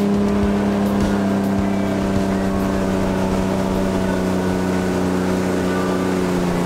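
Motorboat engine running steadily under load while towing a wakeboarder, a constant hum that eases slightly lower in pitch near the end.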